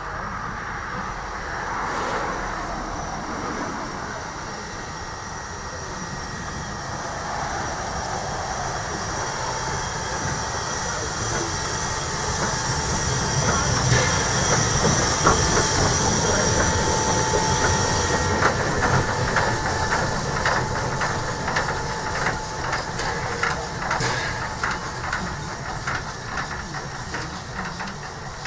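Prussian T3 (Bismarck type) steam tank locomotive running past on a curve. Steam hisses, loudest about halfway through, then a quick run of clicks and clanks from the wheels on the rails.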